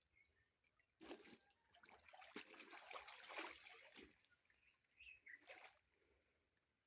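Faint water trickling and splashing as laundry is washed by hand in a river: a longer spell of a few seconds, then a short one near the end.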